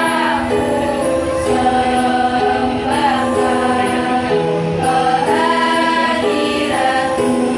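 A girls' choir singing in several parts, holding long notes that shift together into new chords about once a second.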